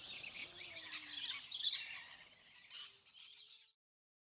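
Rainbow lorikeets chattering and screeching in a series of harsh, high calls that grow fainter and stop shortly before the end.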